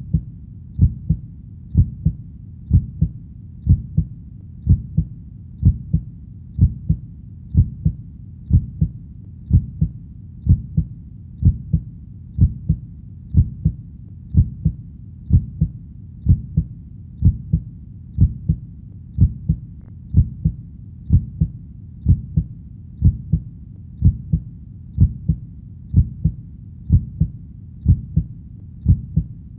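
Heartbeat: steady low lub-dub double thumps, about one beat a second.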